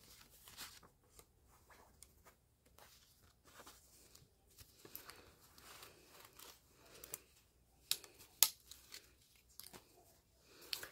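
Paper banknotes rustling faintly as a stack of bills is handled and flipped through by hand, with two sharper clicks about eight seconds in.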